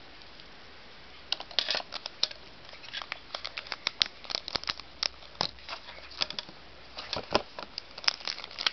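Packaging being handled during an unboxing: irregular crinkles, rustles and sharp clicks of plastic and cardboard, starting about a second and a half in.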